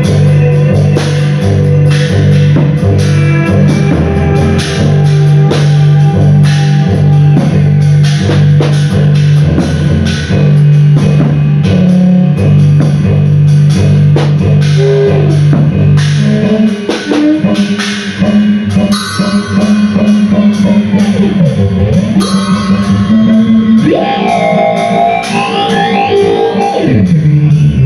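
Live band music: drums keep a steady beat under loud, held low guitar notes. About two-thirds of the way in, the low notes change and sliding pitches swoop down and back up over the beat.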